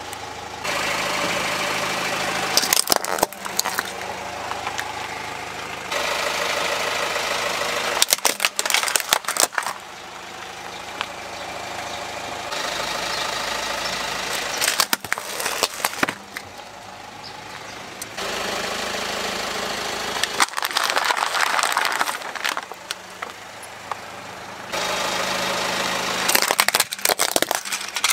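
Car tyre rolling slowly over plastic toys and crushing them, with the car's engine running at idle: about five clusters of sharp cracking and snapping of breaking plastic over steady engine noise.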